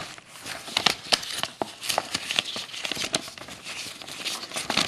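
Pages of a small paper LEGO instruction booklet being flipped and handled: a quick run of paper rustles and crinkles.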